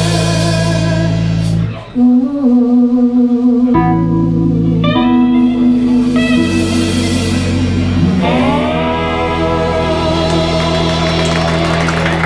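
Live band with electric guitar, drum kit and keyboard playing the closing bars of a slow song. The band drops out briefly about two seconds in, then returns under long held notes with vibrato, one note sliding up about eight seconds in.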